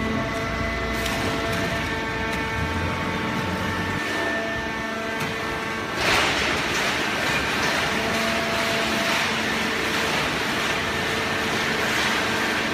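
Hydraulic horizontal baler running: a steady machine hum with several held tones over a rattling haze. It turns louder and noisier about six seconds in.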